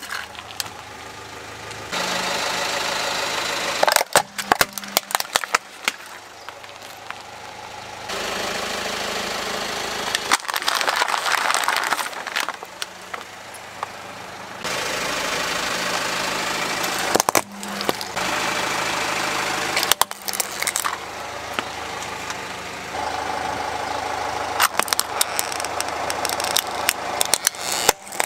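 Car engine idling as a tyre rolls slowly over plastic toys and objects, crushing them with repeated sharp cracks and snaps. The sound changes abruptly every few seconds, from one crush to the next.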